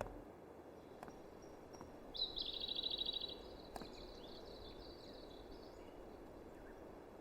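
A bird trilling, a rapid run of high notes for about a second starting about two seconds in, followed by a few fainter calls, over a faint steady outdoor background noise.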